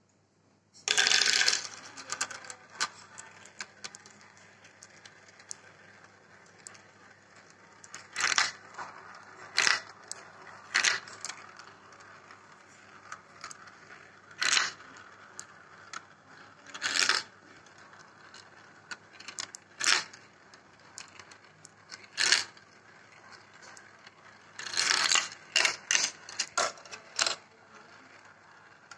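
Glass marbles running through a plastic marble-run track: a faint steady rolling as they circle the funnels, broken by sharp clacks and clatters as they drop through the tubes and strike the plastic, with a loud clatter about a second in and a quick run of clacks near the end.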